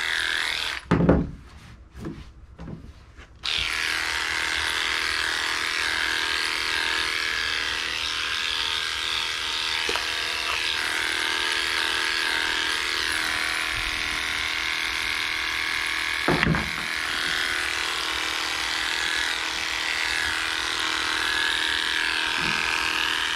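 Cordless electric dog clippers running with a steady whine while clipping a Shih Tzu's coat. About a second in they go quiet for a couple of seconds, with a loud knock, then run on steadily, and there is one more short knock about two thirds of the way through.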